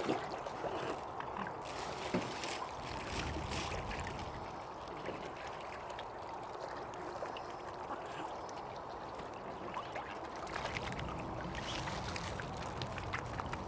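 Water lapping and trickling, with scattered small splashes; a low rumble comes in about ten seconds in.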